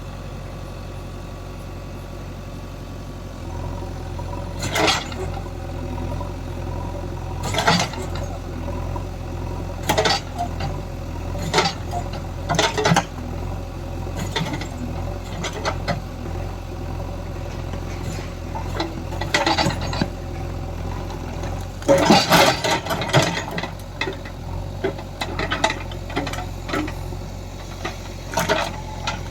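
JCB 3DX backhoe loader's diesel engine running steadily under work, with loud metal clanks and rattles every few seconds, the thickest cluster a little past two-thirds of the way through, as the machine digs at tree roots.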